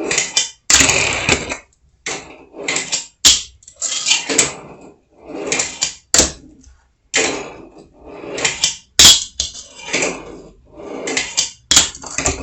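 Fingerboard wheels rolling on a wooden ramp, with sharp clacks of the board popping and landing, over several short runs, some of which cut off abruptly.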